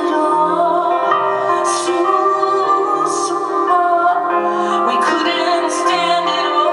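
Live music: a woman singing long held notes over piano and keyboard accompaniment.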